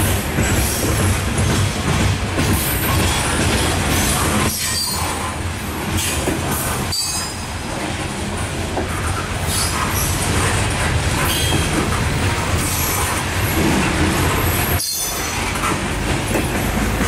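Coal hoppers and gondolas of a long freight train rolling past close by: a steady heavy rumble of steel wheels on rail, with short high-pitched wheel squeals coming and going.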